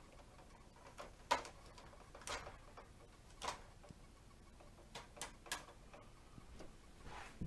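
Plastic ladder of a Bruder MAN toy fire engine being raised and extended by hand: about half a dozen faint plastic clicks at irregular intervals.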